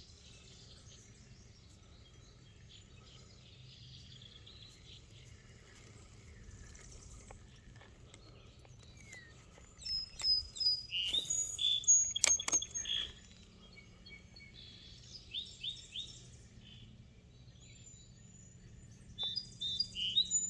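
Songbirds chirping in quick high bursts, loudest about halfway through, again a little later and near the end, over a faint low steady rumble. A few sharp clicks sound among the first burst of calls.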